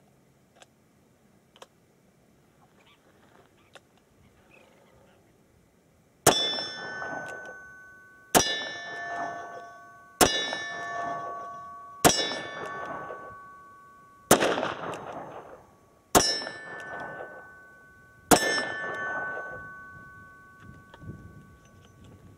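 Seven shots from a Smith & Wesson 686 Plus seven-shot revolver, fired about two seconds apart, each one answered at once by the clang of steel silhouette targets ringing and fading away. A few faint clicks of handling come before the first shot.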